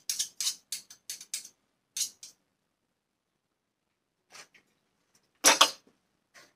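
Spoon scraping and tapping while scooping peanut butter, a quick run of about eight clicks and scrapes in the first two seconds. About five and a half seconds in, a louder short clatter of the spoon against the plate.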